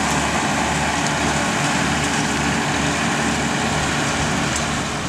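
Renault Ceres tractor's diesel engine running steadily under load, pulling a John Deere 575 round baler that is working behind it.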